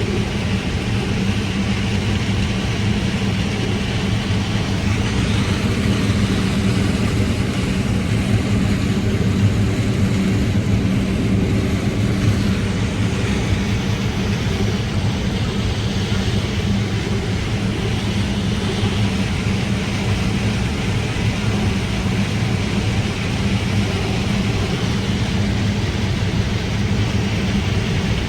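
New Holland combine harvesting corn, its engine and threshing machinery running in a steady drone, heard from inside the cab.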